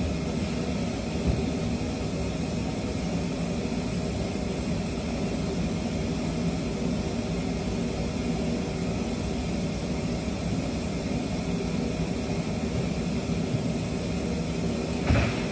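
Steady drone of industrial shop machinery running continuously, with a brief knock or clatter near the end.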